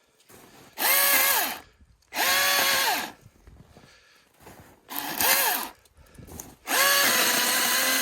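Milwaukee M18 cordless electric chainsaw run in four short bursts while limbing a felled tree, each burst a steady motor whine that falls in pitch as the trigger is released. The last burst is the longest.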